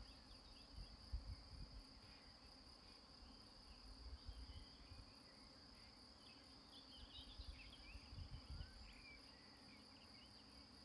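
Faint, steady high trill of crickets, with a few fainter chirps about two-thirds of the way in and occasional low rumbles.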